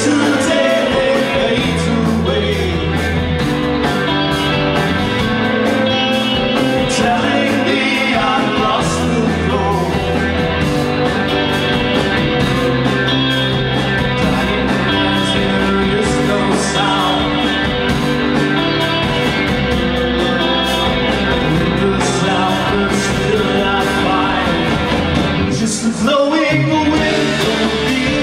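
Live rock band playing electric guitar, bass and drums, with a man singing lead into a microphone. The band drops out briefly near the end before carrying on.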